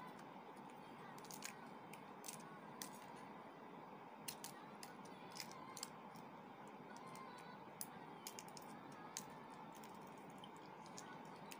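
Faint, irregular crackling clicks of eggshell being picked and peeled off a boiled duck egg by hand, over a steady low hiss.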